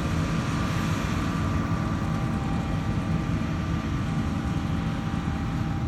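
Combine harvester running steadily while cutting wheat, heard from inside its cab: an even, low machinery hum with a faint steady whine.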